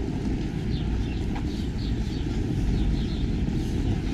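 Outdoor city street ambience: a steady low rumble with faint, short high chirps scattered through it.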